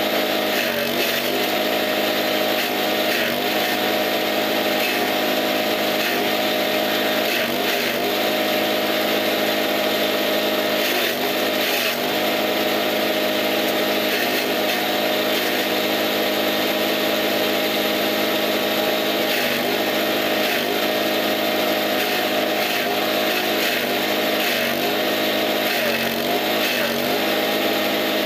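Forage chopper driven by a small petrol engine, running steadily at speed as green leaves and stalks are fed into it. Its pitch dips briefly every few seconds as the blades bite into each armful of forage.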